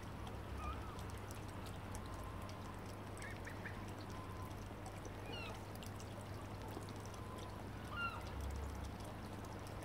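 Young ducks giving a few faint, soft peeps, short sliding calls every few seconds, over a steady low background hum.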